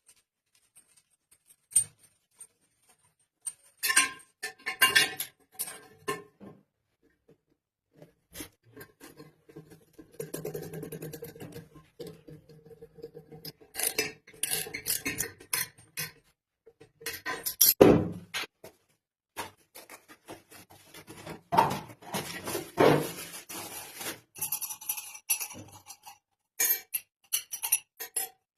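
Irregular clinks, knocks and scrapes of hard plumbing fittings being handled and fitted to a wash basin, in scattered clusters, with the loudest knocks about two-thirds of the way in.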